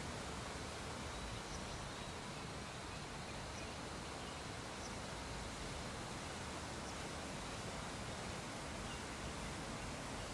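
Steady hiss of background noise, with a few faint, short high ticks scattered through it.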